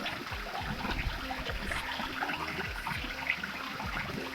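Water running and splashing steadily, with many small quick splashes, typical of a stream or waterfall flowing over rocks.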